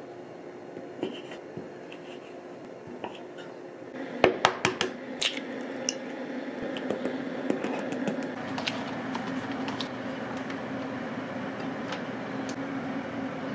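A knife cuts a sausage on a wooden cutting board with a few light taps. About four seconds in comes a quick run of sharp clicks as an egg is cracked into a glass bowl. From about eight seconds a steady hum sets in, with light scrapes and clinks of a knife spreading butter in a frying pan on a gas hob.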